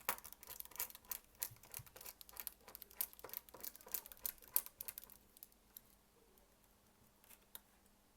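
Rapid small clicks and ticks of a precision screwdriver working a tiny screw out of a smartphone's internal plate, dense for about five seconds, then just a couple of single clicks.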